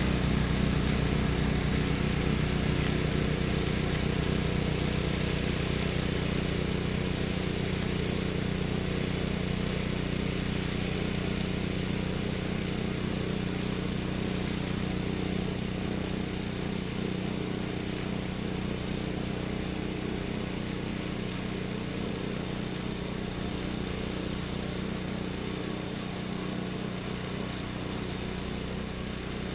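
Small gasoline engine of a snowblower running steadily at a constant speed, gradually getting quieter.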